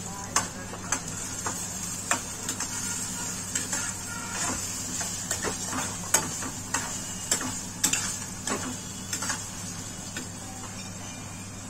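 Sliced onions sizzling in hot oil in a frying pan, with irregular clicks and scrapes of a spatula stirring them against the pan. The onions are being fried toward golden brown.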